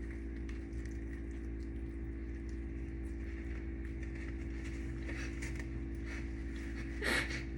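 A person chewing a bite of a brie, turkey bacon and fig sandwich on a roll, faint wet clicks over a steady low electrical hum, with a short voiced murmur near the end.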